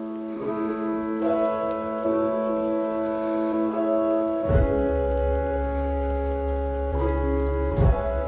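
Instrumental background music of held chords. A deep bass note comes in about halfway, and the chord changes again near the end.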